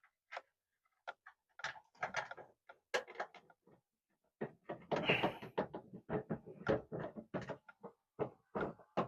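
Parts being handled during a rear spoiler install: a fast, irregular run of clicks, taps and knocks, sparse at first and busiest in the second half.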